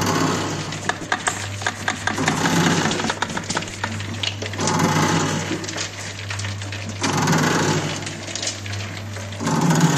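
Soap mixer running with a steady hum while soap chips clatter down its steel chute into a steel bowl, the rattling swelling about every two and a half seconds as the mixer's paddles push out another load.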